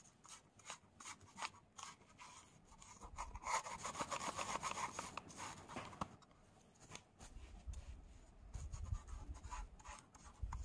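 A paint sponge dabbing and rubbing acrylic paint onto a plastic curd cup. Faint, quick scratchy taps, with a stretch of steady rubbing a few seconds in.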